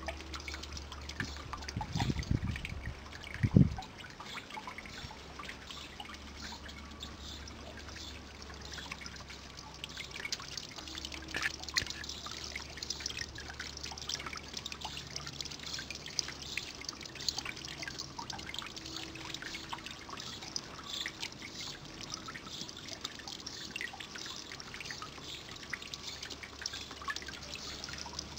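Small garden pond fountain trickling, with a steady patter of splashes and drips. A few low bumps in the first four seconds, the loudest about three and a half seconds in.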